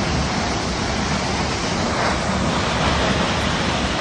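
Large waterfall pouring down a granite cliff: a steady, loud rush of falling water.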